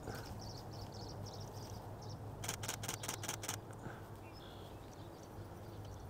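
Camera shutter firing a rapid burst of about seven clicks, lasting about a second, midway through. Faint repeated high bird chirps and a low steady hum run underneath.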